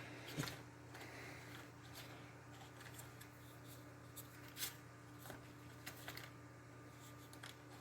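Faint, scattered clicks and rustles of small hands-on handling of wires and plugs, over a steady low hum.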